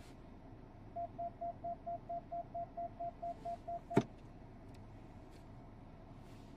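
Jeep Compass cabin warning chime beeping on one pitch about four times a second for some three seconds while the automatic gear selector sits in Neutral. The beeping stops at a single sharp clunk as the selector is shifted into Park.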